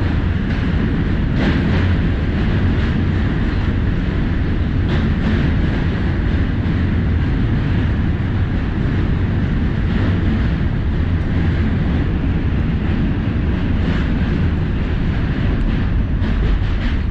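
A New York subway train running over the steel Manhattan Bridge, heard from inside the car: a loud, steady rumble of wheels on rail, with a few faint clicks.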